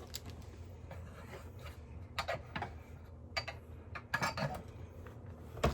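A box of sample coffee capsules being handled and opened: a few scattered light clicks and rubbing sounds about a second apart.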